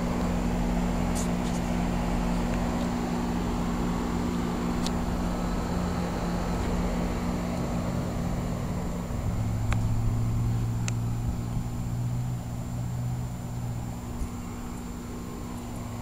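2010 Janitrol 13 SEER heat pump outdoor unit running in cooling mode: a steady compressor hum over the rush of the condenser fan. A deeper hum joins about nine seconds in and fades near the end, with a few faint clicks.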